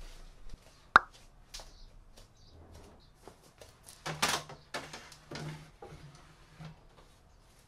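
A light wooden table being handled and set in place: one sharp knock about a second in, then a brief scraping rustle around the middle, with scattered light knocks and rubs.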